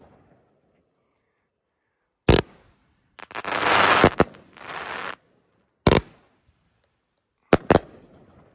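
Dominator 'Domination' 42-shot pro-level firework cake firing, loud: a sharp bang about two seconds in, a dense stretch of crackling from about three to five seconds in, another bang near six seconds, and a quick double bang near the end.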